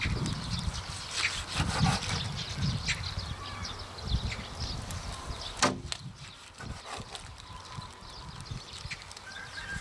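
Chef's knife cutting through boiled pig's trotter (jokbal) and knocking on a wooden cutting board: irregular dull knocks, with one sharper click a little over halfway through, then quieter cutting.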